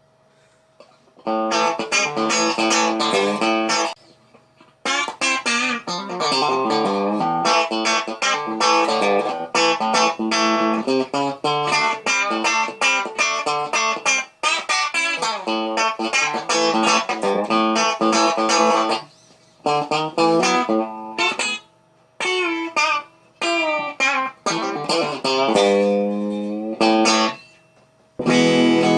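Electric guitar built from a Telecaster-style kit, played through an amplifier: quick picked single-note phrases with string bends, broken by a few short pauses. Its tone mod is engaged and the tone control is rolled back a little.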